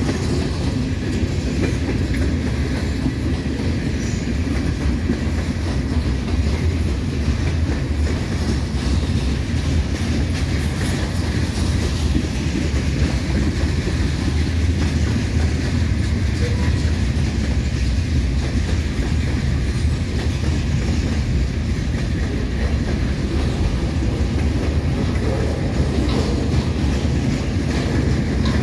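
Cars of a mixed freight train rolling past: a steady rumble and rattle of steel wheels on the rails, heaviest in the low end and unbroken throughout.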